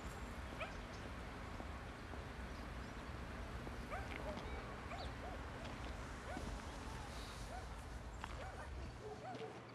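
Faint outdoor ambience: a steady low rumble of distant traffic, with a run of short, small chirping bird calls from about four seconds in. The rumble drops away near the end.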